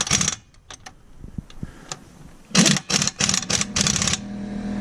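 Impact wrench hammering on the lug nuts of a dual rear wheel, snugging them in a string of short bursts about halfway through, after a few light clicks of the socket. A steady low hum starts near the end.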